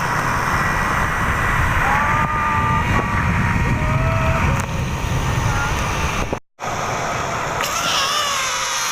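Rushing wind and rolling noise of a flying-fox zip line ride. A few high-pitched yells from the rider are mixed in. The sound cuts out abruptly for a moment about six and a half seconds in.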